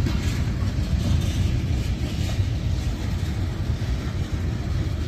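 Freight train tank cars rolling past close by: a steady low rumble of steel wheels on rail.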